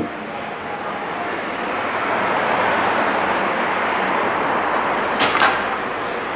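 Street traffic noise, an even steady rush that swells over the first couple of seconds and holds. There is a click at the start and a sharp knock about five seconds in.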